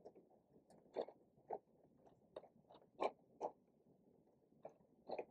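Faint, irregular small clicks and taps, about eight in all, from hands working fabric under a sewing machine's presser foot; the machine itself is not heard running.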